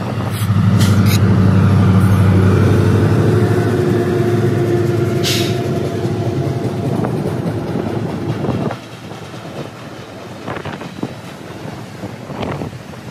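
Union Pacific diesel-electric train passing close by: a loud, steady low drone from the locomotives with a few sharp clicks, dropping off suddenly about nine seconds in to a quieter rushing noise.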